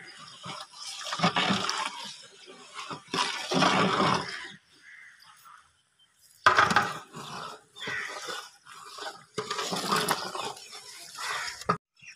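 Liquid stock sloshing in a large aluminium cooking pot as a long metal ladle stirs it, in several bursts with short pauses between.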